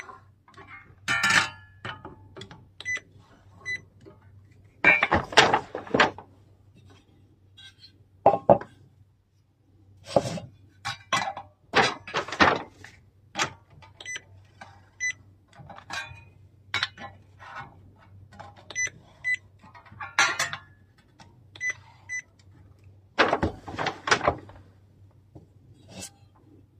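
A handheld inkjet marker and a metal guide plate being handled: irregular clicks and knocks of plastic and metal, several rough scraping sounds about a second long, and many short high beeps.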